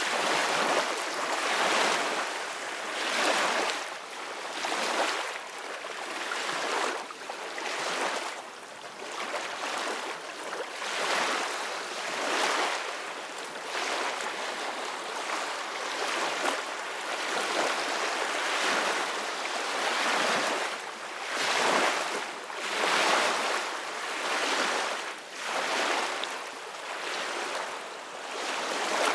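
Gentle ocean waves washing in, the surf hiss swelling and fading every second or two with no steady tone or music.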